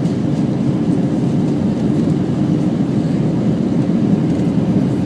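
Steady noise of an Airbus airliner's jet engines and airflow as heard from inside the passenger cabin, even and unchanging, deepest in the low range.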